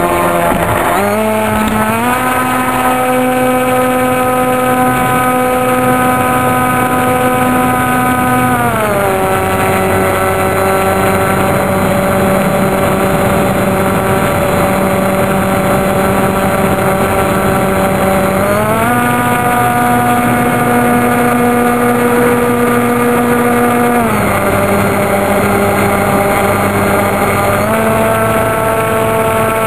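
Engine and pusher propeller of a radio-controlled model autogyro, heard from a camera on board: a loud, steady engine tone. It steps up in pitch a second or two in, drops about nine seconds in, rises again around eighteen seconds, drops around twenty-four and climbs once more near the end, as the throttle is opened and eased in flight.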